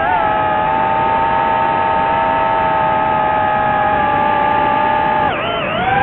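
Drone's electric motors and propellers whining at a steady pitch, then dipping sharply just past five seconds in and climbing back up as the throttle is eased off and opened again.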